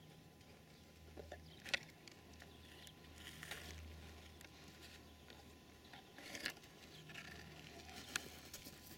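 Faint scuffs and a few sharp clicks close to a ground-level microphone, as dogs shift and move on dry, stony ground, over a low steady hum.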